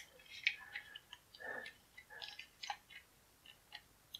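Faint, scattered clicks and creaks of hard plastic as a toy motorcycle's plastic front wheel is pressed onto its fork by hand.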